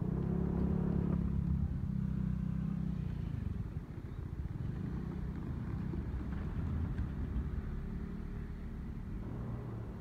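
Motor vehicle engine running close by, loudest in the first three seconds, then fading to a lower, steady hum.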